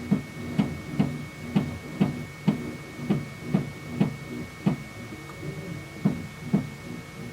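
FlashForge Adventurer3 3D printer running a print with its stepper motors whining in shifting tones, broken by a sharp knock about twice a second, like a drum being struck, with a short pause in the knocking about two-thirds of the way through. The knocking is a fault, which the owner traced to the print head's distance from the bed.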